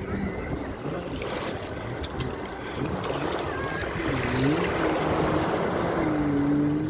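Small waves washing and lapping in shallow water at the shoreline, with wind buffeting the microphone. A voice holds long, gliding notes at the start and again from about four seconds in.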